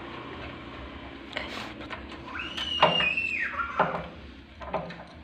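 Metal clicks, knocks and scrapes of an electric starter motor being handled and worked into place on a small petrol engine's housing. About two and a half seconds in comes a brief high squeak that holds for about a second and then drops in pitch.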